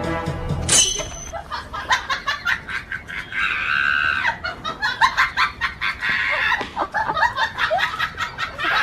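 Chickens clucking and squawking loudly in a scuffle, with repeated short sharp clucks and a few drawn-out squawks. Background music cuts off about a second in.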